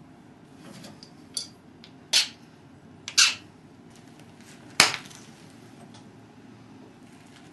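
Pressure flaking a stone point held in a leather pad: four sharp snaps about a second apart as pressure flakes pop off the edge, the loudest and sharpest about five seconds in.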